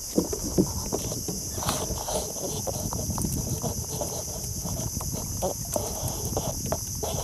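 A steady, high insect chorus from the riverside forest, with irregular light knocks and clicks from fishing line and gear being handled in a small boat.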